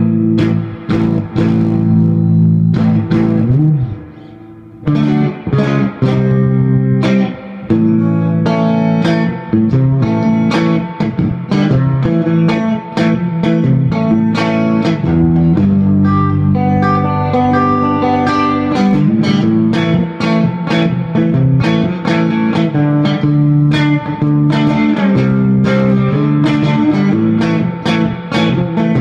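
Electric guitar played loud through a 1964 Fender Vibroverb-style 6L6 tube amp: a run of picked notes and chords with heavy bass, and a short break about four seconds in. The microphone is overloaded by the amp's volume, so the recording is saturated.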